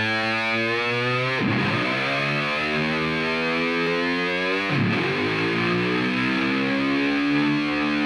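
Music on heavily distorted electric guitar: long held chords, struck anew twice, about a second and a half in and again near five seconds.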